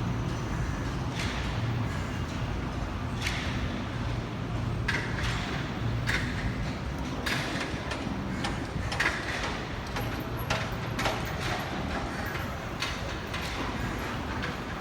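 Steady low rumble of city street noise, with frequent short knocks and clatters on top.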